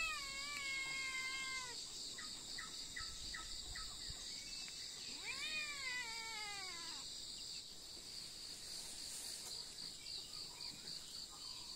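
Domestic cat meowing twice: two long, drawn-out meows, the second about five seconds in, rising and then falling in pitch. A steady high-pitched buzz runs behind them.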